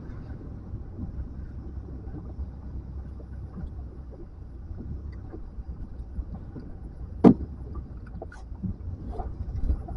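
Steady low rumble of wind and choppy water around a small boat, with one sharp knock a little over seven seconds in and a few faint ticks after it.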